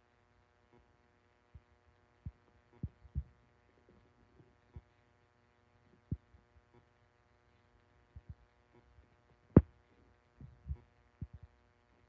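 Near silence under a faint steady electrical hum, broken by about a dozen irregular dull low thumps, one much louder knock about two-thirds of the way through.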